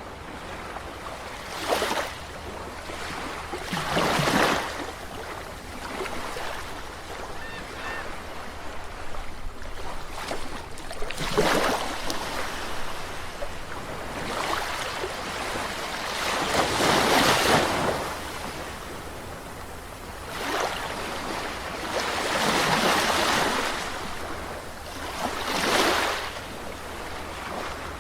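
Calm sea waves breaking and washing in, each wave swelling up and falling away, a few seconds apart, over a steady wash of surf.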